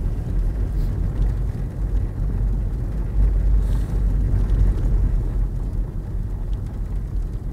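Steady low rumble of a car in motion heard from inside the cabin: engine and tyre noise on a snowy, sanded road.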